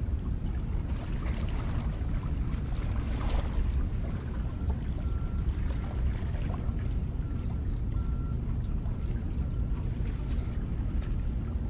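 Steady low rumble of wind buffeting the microphone at the shoreline, with faint scattered ticks over it.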